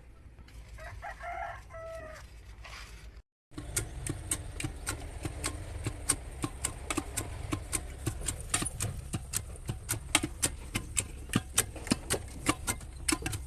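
A rooster crows once for about two seconds. After a short break, a run of sharp clicks follows, two or three a second, over a low steady hum.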